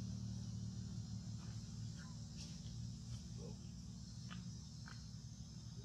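Outdoor ambience of a steady high insect drone over a low rumble, with a few faint short chirps and clicks scattered through the middle.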